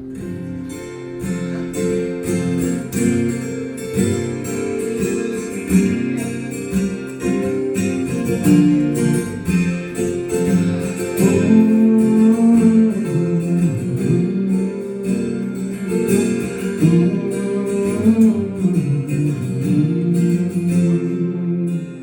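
Acoustic guitar strummed and picked in an instrumental passage of a song, with no singing.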